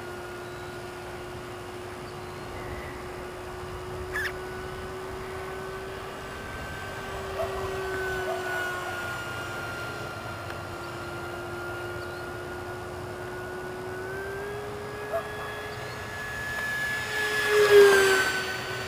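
Radio-controlled foam F4D Skyray model jet's electric motor whining steadily in flight. About two thirds of the way through, its pitch rises. Near the end it swells loudest as the model makes a low pass overhead, and its pitch drops as it goes by.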